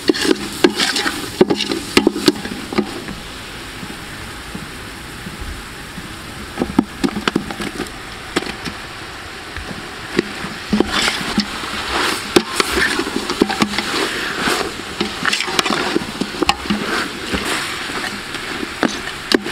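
Long metal ladle stirring and scraping in a large aluminium stockpot of frying aromatics and oxtail, with frequent knocks against the pot over a sizzle. It goes quieter for several seconds after the first few, then the stirring picks up again.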